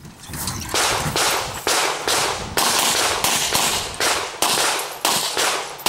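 Pistol shots fired in a fast string during a practical shooting stage: about a dozen sharp reports, roughly two a second, each followed by a short fading echo.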